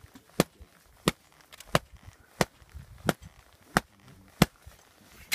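Open hand striking hard from the shoulder onto a shovel blade laid on a snow column: sharp slaps about every two-thirds of a second, about eight in all. These are the shoulder taps of a snowpack compression test, loading the column until a weak layer fails.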